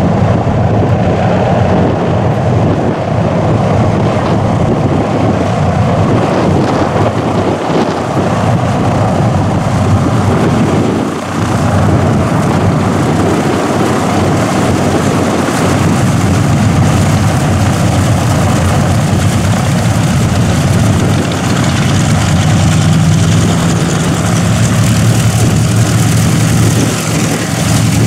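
Boeing B-29 Superfortress taxiing, its Wright R-3350 radial piston engines running at low power with propellers turning: a loud, steady engine and propeller drone. A low engine hum grows stronger over the last few seconds as the bomber draws alongside.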